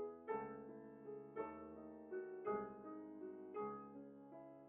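Background piano music, a new note or chord struck roughly every second and left to fade.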